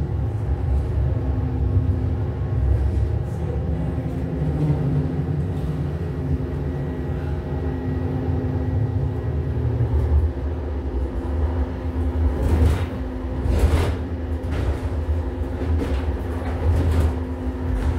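Inside a light-rail train car while it runs along the track: a steady low rumble with a constant hum. A few brief hissing swishes come about two-thirds of the way through.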